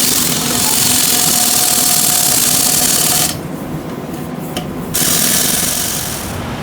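Impact wrench running on the wheel's lug nuts during a tire change: one run of about three seconds, a pause, then a shorter run of about a second and a half.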